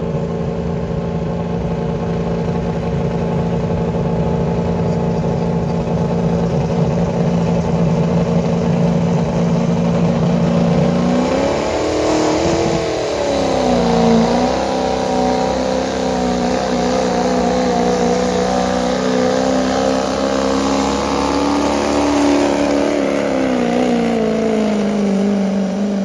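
Turbocharged diesel pickup truck engine pulling hard under load, held at steady high revs. The revs climb briefly about halfway, settle, then sag gradually near the end.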